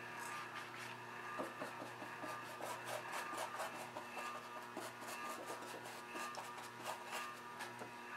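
Paintbrush scrubbing acrylic paint over a gritty, sand-textured canvas: quick, irregular scratchy strokes, several a second, over a faint steady hum.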